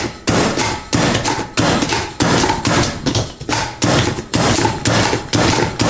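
Plunger-style manual food chopper pushed down again and again, its blades chopping onion against the cutting board with about ten sharp, evenly spaced strokes, a bit under two a second.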